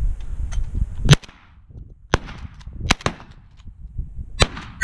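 Shotgun shots at doves: one loud report about a second in, then about four sharper, quieter reports spread over the next few seconds, the louder ones trailing off in a brief echo.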